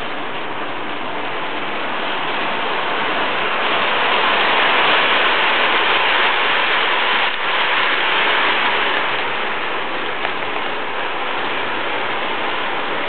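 Toy electric train running on its track: a steady rushing rumble of wheels on rails that swells for several seconds as the train passes, then eases off.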